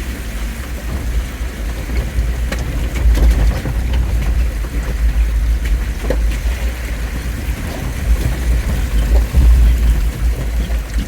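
Jeep Wrangler driving, a steady deep rumble of engine and road noise with scattered faint ticks.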